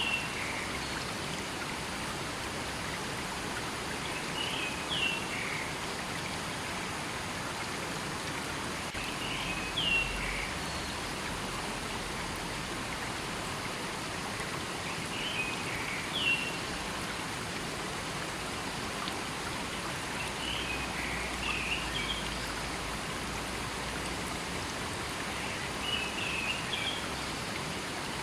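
A river or stream running steadily, with a bird giving a short chirped call about every five to six seconds.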